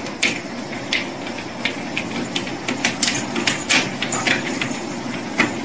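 Motorized treadmill running with a steady noise, with irregular clicks and knocks of a dog's and a cat's paws on the moving belt.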